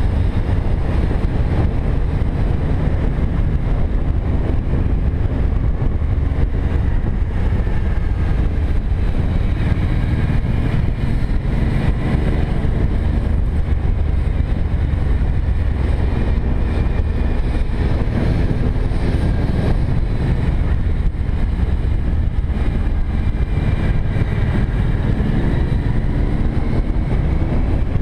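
Cruiser motorcycle engine running at road speed, with wind rushing over the microphone. The engine note rises a few times as the rider accelerates out of the bends, around the middle and near the end.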